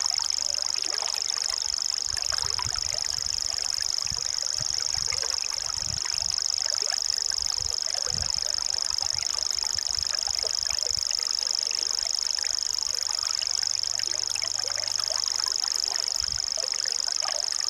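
A bird's continuous high-pitched, fast reeling trill that sounds like a sewing machine, held without a break.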